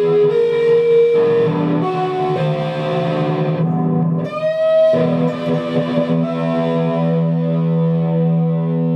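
Guitar music played through effects with some distortion: long held notes with a note sliding upward about four seconds in.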